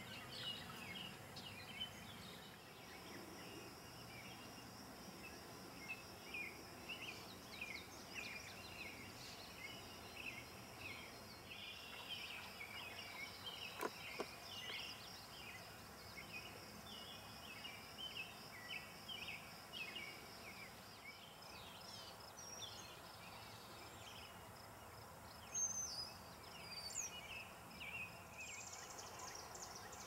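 Faint wild birds chirping: many short, quick notes, with a thin steady high tone running under most of it and a single sharp tick about fourteen seconds in.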